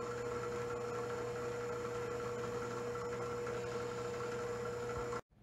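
Bench drill press motor running steadily: an even hum with a clear constant mid-pitched tone, cutting off abruptly near the end.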